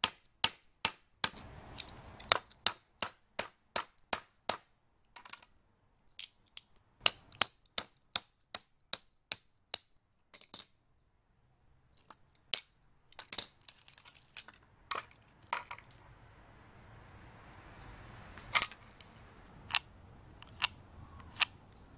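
Sharp metal-on-metal blows driving a steel punch into the eye of a hammer head to knock out the broken wooden handle stub and wedges. The blows come in quick runs of about three a second, pause briefly about halfway through, then a few scattered knocks follow.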